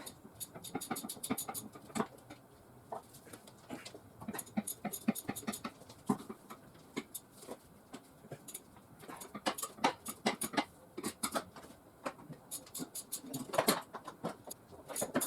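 Hand tools at work on the car: bursts of rapid small clicks and light metal clatter, coming and going in clusters.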